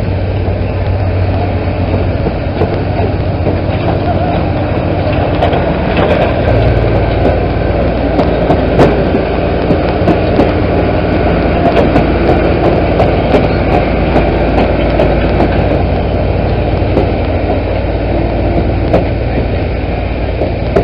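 Heavy equipment engines running steadily while wrecked demolition-derby trucks are hauled off, with many sharp metal clanks and rattles. The low engine rumble grows louder about six seconds in.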